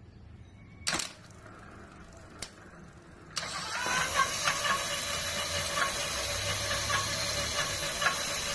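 24-volt electric bike motor switched on: two sharp clicks about a second in and a moment later, then the motor starts suddenly about three seconds in and runs steadily with a high whine and light irregular ticks.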